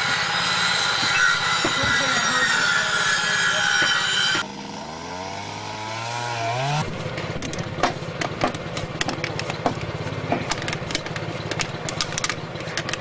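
A small engine running with a steady pulsing drone. Its pitch rises for a couple of seconds around the middle as it speeds up. In the second half, many sharp clicks and knocks of work clatter sound over it.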